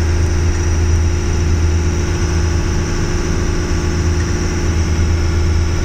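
A boat's engine running steadily under way, heard from inside the wheelhouse as an unchanging low drone.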